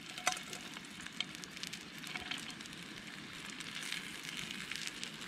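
Corn tortilla sizzling and crackling in fish juices in a stainless pan over a camping gas stove, with a steady hiss beneath the fine crackles. A light click just after the start.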